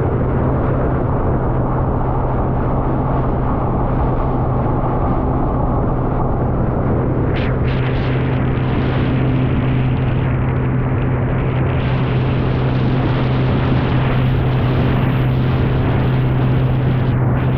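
Motorboat engine running steadily under way, a constant low drone with an even rushing noise over it.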